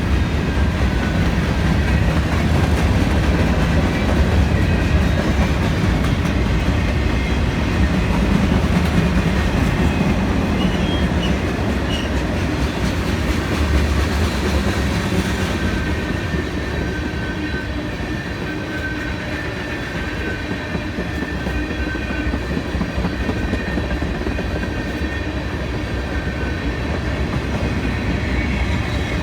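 CSX freight train's cars rolling past: a steady rumble and clatter of steel wheels on the rail joints, with a faint high wheel squeal running through it.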